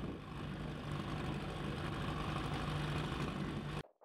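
A boat's motor running steadily with a low hum, mixed with rushing noise. It cuts off suddenly near the end.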